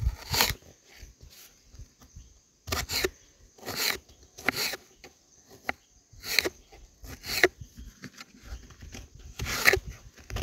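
Fresh coriander leaves being prepared by hand for cooking: a string of short, crisp strokes, roughly one a second and unevenly spaced.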